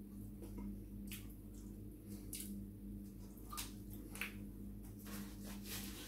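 A paper napkin rustling as fingers are wiped on it, densest near the end, with a few soft clicks before it. A steady low hum sits under it.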